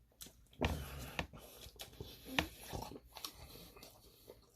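A person eating close to the microphone: chewing with a few louder wet smacks.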